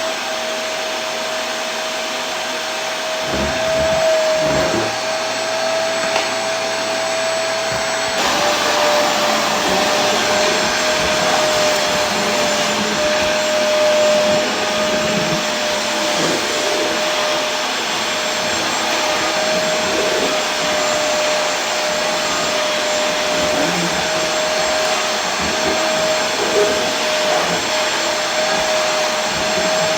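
Vacuum cleaner running steadily: a constant rush of air with a steady motor whine, changing slightly in tone about eight seconds in.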